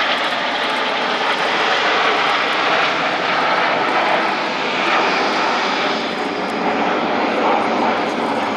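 Jet noise of the RAF Boeing E-7 Wedgetail and the Red Arrows' BAE Hawk jets flying past together in formation, a loud, steady roar.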